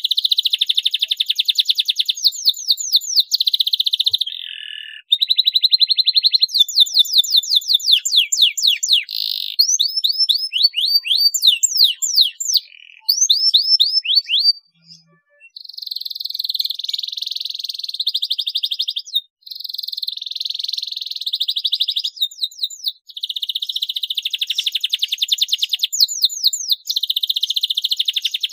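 Domestic canary singing a long, loud song of fast trills and rapid sweeping notes, with several short breaks between phrases.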